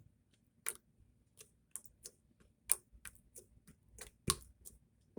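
Slime being stretched and squished by hand, giving a string of sharp, irregular sticky clicks and pops, two of them louder than the rest.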